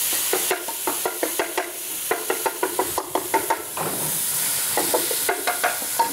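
Wooden spoon stirring and scraping in a pan, knocking against it several times a second, over the sizzle of tomatoes and spices frying.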